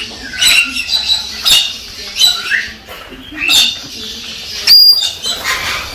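Galah (rose-breasted cockatoo) giving a series of short, shrill calls, about five of them roughly a second apart, with one brief clear high whistle near the end.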